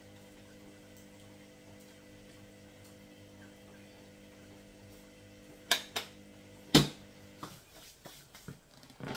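A steady low machine hum, with three sharp knocks about six seconds in, the third the loudest. The hum cuts off soon after, and a few lighter clicks and knocks follow.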